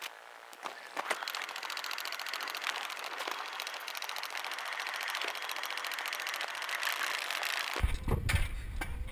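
Alpine coaster sled running slowly along its rail track, giving an even, rapid mechanical clicking rattle. Near the end it gives way to a low rumble and a bump.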